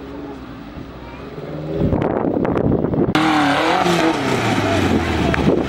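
Off-road trial vehicles' engines revving hard as they climb steep dirt mounds. The engine swells loud about two seconds in and revs up and down. A little past three seconds the sound switches abruptly to a second engine, a tube-frame buggy's, revving up and down as it climbs.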